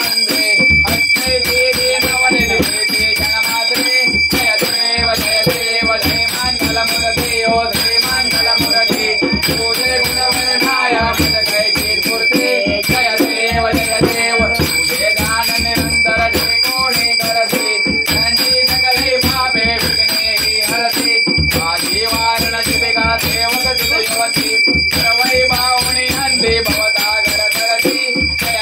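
A group of people singing a Marathi Ganesh aarti together, with steady rhythmic percussion in time and a bell ringing continuously.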